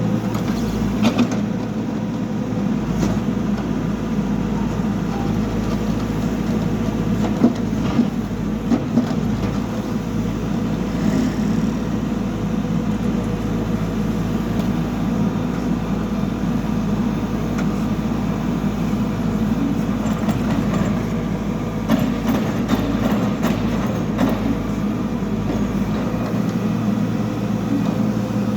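Backhoe loader's diesel engine running steadily under work, with a few short knocks and clanks from the working gear about a second in, a third of the way through, and again past the middle.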